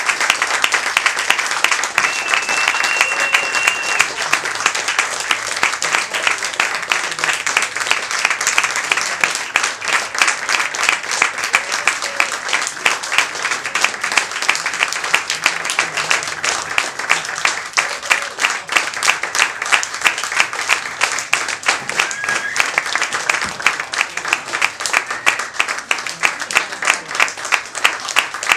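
Audience applauding, the clapping gradually falling into unison at about three claps a second. A high whistle from the crowd rings for about two seconds early on.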